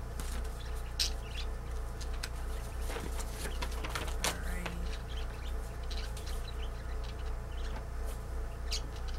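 Sheets of printed paper (an order invoice) rustling and crinkling as they are unfolded and handled, in many short irregular crackles over a steady low hum.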